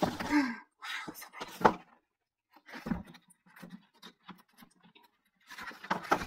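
Glossy photobook pages being handled and turned by hand: soft paper rustles and slides with a sharp tap about a second and a half in. A short wordless vocal sound from the person comes right at the start.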